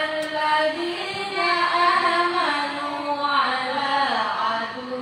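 Women's voices chanting a Qur'an recitation, slow and melodic with long held notes that glide from pitch to pitch.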